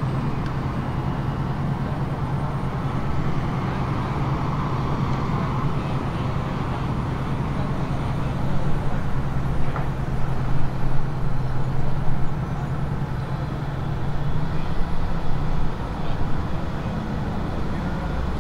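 Steady low drone of an idling engine, with louder uneven bumps about halfway through.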